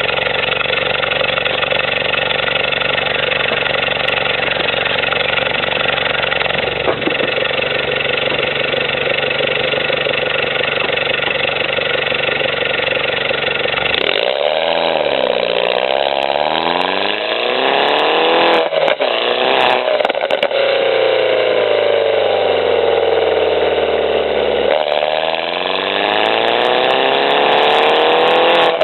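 Mini Cooper S JCW (R56) turbocharged four-cylinder, fitted with a 200-cell sports catalyst and aftermarket exhaust, idling steadily for about fourteen seconds. It is then revved up and down several times, the pitch rising and falling in repeated swells.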